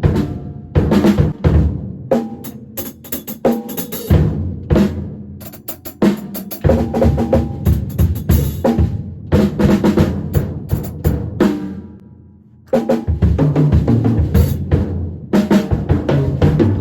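Drum kit being played: a busy pattern of bass drum, snare and cymbal hits, breaking off briefly about twelve seconds in before the playing starts again.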